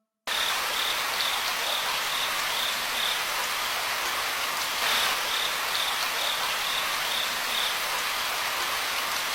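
Steady rush of falling water from a waterfall, with an insect chirping in a quick, regular pulse in two spells over it.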